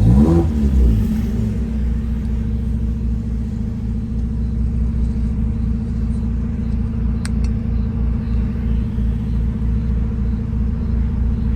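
Car engine and exhaust running with a brief rev right at the start, then a steady low drone at constant speed.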